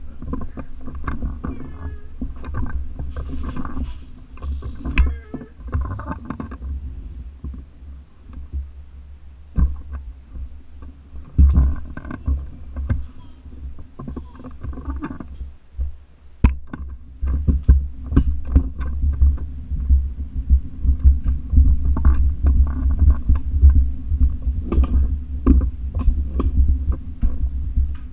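Toddler's push tricycle rolling across the floor, its wheels making a steady low rumble and its frame and handlebar rattling and clicking, heard through a camera mounted on the handlebar.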